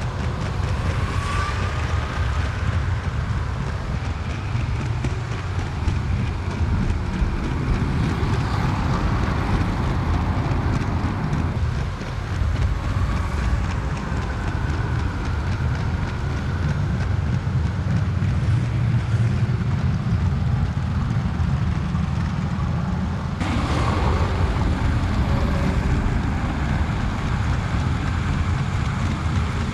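LEGO 9V train running along plastic track, its motor and wheels making a steady low rumble, heard from a camera riding on the train. It gets a little fuller about three quarters of the way through.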